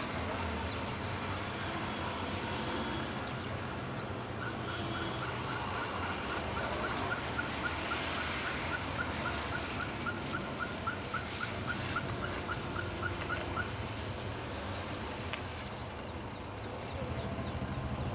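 Steady rumble of road traffic. Over it, for about nine seconds in the middle, runs a rapid series of short, evenly spaced high chirps, about four a second.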